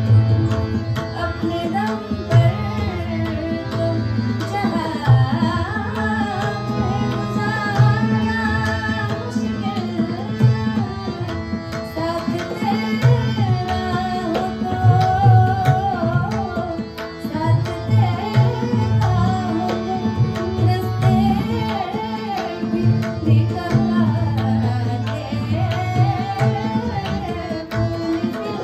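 Ghazal music: tabla keeps a steady rhythm of deep drum strokes under a wavering, ornamented melody.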